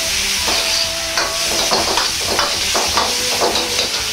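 Stir-fry sizzling in a hot wok with chicken stock in it, as a metal wok ladle scrapes and clanks against the pan in a quick run of strokes, about three a second, from about a second in until near the end.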